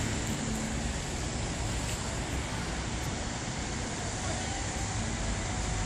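Steady hum of city street traffic, a low even rumble with no distinct events.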